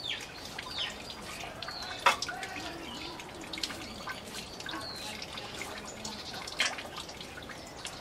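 Onion being cut by hand over an empty stainless steel bowl, with pieces dropping in as scattered sharp clinks against the metal. The loudest clinks come about two seconds in and again near seven seconds.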